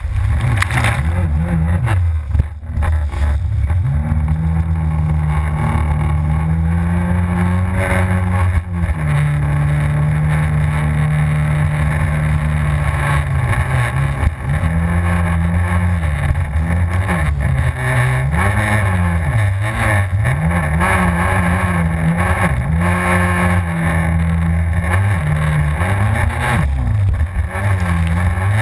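Yamaha FZS WaveRunner's engine running hard, its pitch rising and falling again and again as the throttle is worked over the waves.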